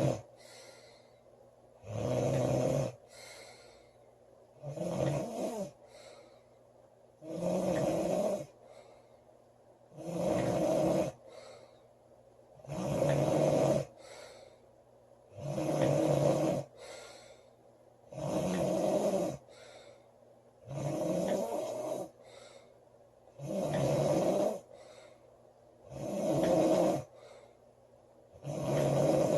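A girl snoring loudly in a steady rhythm, about one snore every two and a half to three seconds. Each snore lasts about a second and is followed by a fainter short breath.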